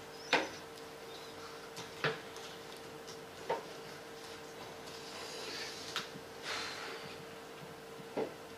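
Quiet room with a faint steady hum, broken by about five short clicks and knocks and a soft scratching rustle around five to seven seconds in: marker pens and answer boards being handled and written on at a table.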